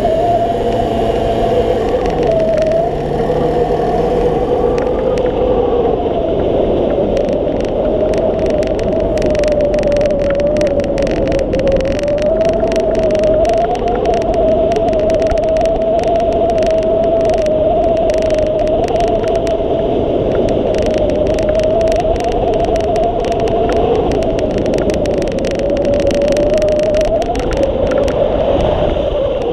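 Steady rush of airflow over a wing-mounted camera on a hang glider in flight, with a moaning tone that wavers slightly in pitch.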